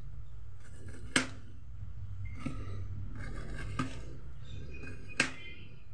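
Kitchen knife slicing through a banana blossom on a plastic cutting board: four sharp knocks of the blade meeting the board, about one every 1.3 seconds, the first and last louder. A steady low hum runs underneath.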